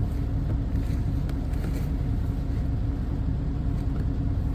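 A steady low mechanical rumble with a constant hum, like a running motor, and a few faint light clicks over it.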